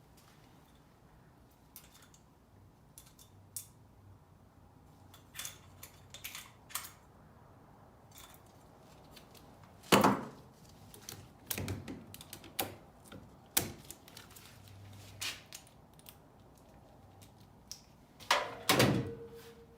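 Scattered clicks, taps and knocks of tools and hardware being handled, with one loud knock about halfway and a short clatter near the end that leaves a brief ringing tone.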